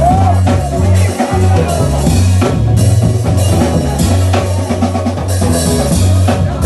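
Background music with a steady drum beat and a prominent bass line.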